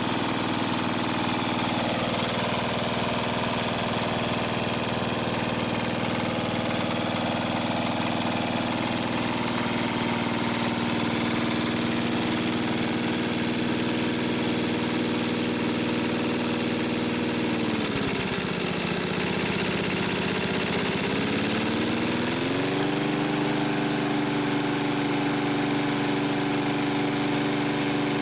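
Victa Ambassador lawn mower's four-stroke Kirby-Lauson engine running steadily. About two-thirds of the way through, its speed sags for a few seconds and then picks back up to a steady pitch.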